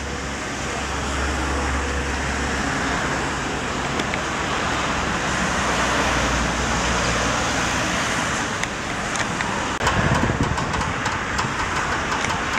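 Steady road traffic noise, cars going by on the street. A little before ten seconds in, the sound cuts off for an instant and comes back louder and rougher, with many small clicks.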